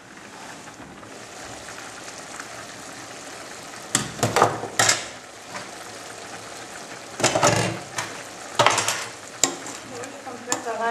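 Minced meat with onions and peppers frying in a stainless steel pot, a steady sizzle, with a few louder bursts of stirring about four, seven and a half and nine seconds in.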